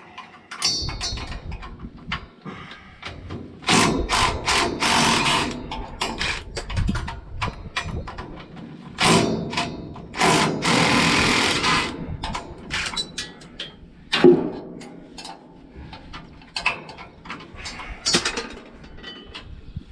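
A power tool running in two longer bursts, about four seconds in and again around ten seconds, amid repeated metal clanks and knocks as bolts are undone on an old hay baler.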